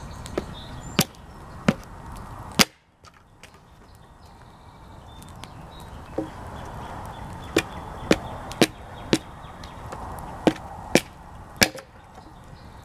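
Firewood being chopped on a log: about a dozen sharp wooden knocks at uneven intervals, with the sound cutting out briefly about three seconds in.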